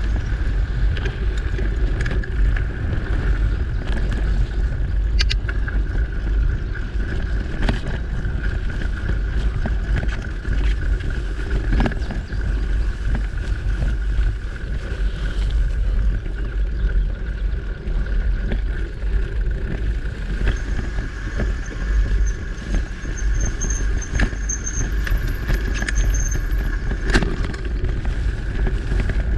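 A mountain bike riding a dirt and grass singletrack: wind rushing over the microphone and tyre rumble make a steady low roar, with scattered clicks and rattles from the bike over bumps.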